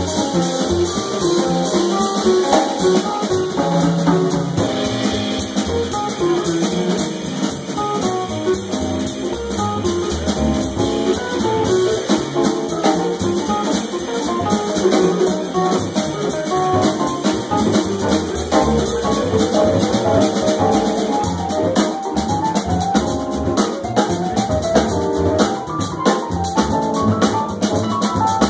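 Live small-group jazz: a keyboard plays a run of quick melodic lines over plucked upright bass and a drum kit with busy cymbals, the tenor saxophone resting.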